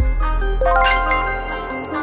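Background music with a bright chime sound effect: a quick run of rising ringing notes about half a second in, the quiz's time-up cue as the answer is revealed.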